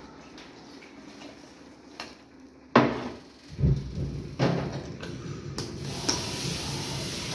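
A sharp knock about three seconds in, followed by a few duller bumps and handling sounds, like dishes or a cupboard door in a kitchen, then a steady hiss that sets in near the end.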